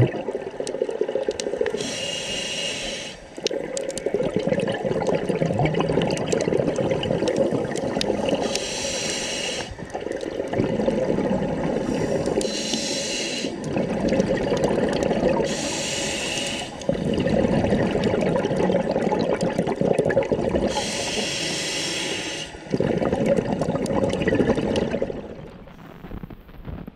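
Scuba diver breathing through a regulator underwater. Five short hisses of breaths in alternate with longer rushing, burbling stretches of exhaled bubbles, and the sound falls away near the end.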